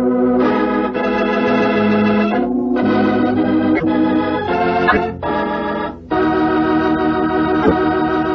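Organ playing loud, sustained dramatic chords that change every second or so, with a few brief breaks, the longest about six seconds in.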